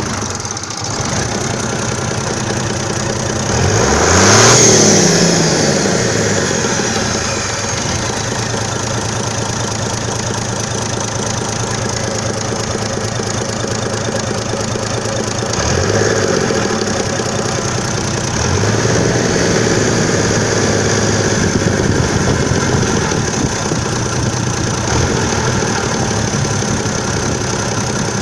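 International Harvester turbocharged diesel engine running, with a steady high turbocharger whine from the open compressor inlet. It is revved up and let back down about four seconds in, the loudest moment, then twice more, briefly, later on.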